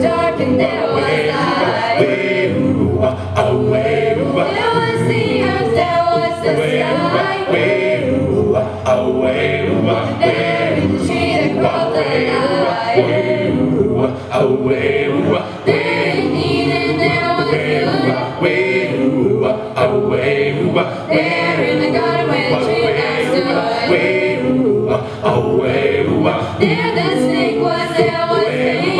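A mixed choir of about a dozen men's and women's voices singing a cappella into handheld microphones, amplified through PA speakers.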